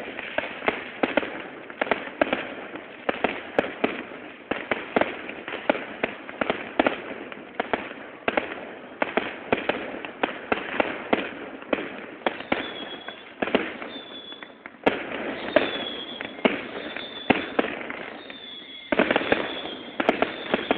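Many fireworks going off at once: a near-constant string of bangs and pops, several a second. From about halfway through, short high whistles join them, and a dense crackling volley comes near the end.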